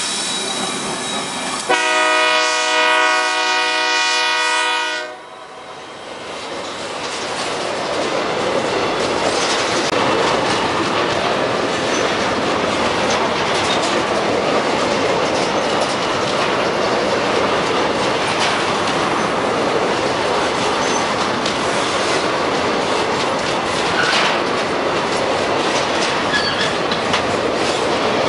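Freight train passing close by: diesel locomotives run past and a multi-note train horn sounds for about three seconds, starting about two seconds in. Then a long string of loaded hopper wagons rolls by with steady wheel clatter.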